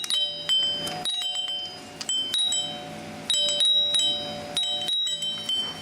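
Audio played through a Friedland doorbell's chime solenoid used as a makeshift speaker: tinny, chime-like held tones that switch on and off in a tune-like pattern, with frequent clicks and rattles.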